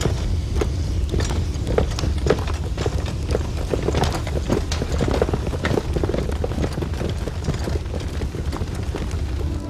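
Footsteps of several people walking away over the ground: irregular short thuds, about two a second, over a steady low rumble.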